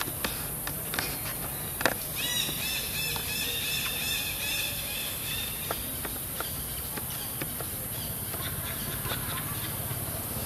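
Outdoor ambience with a low steady rumble, a few sharp taps in the first two seconds, and a run of quick, repeated high chirps lasting a few seconds.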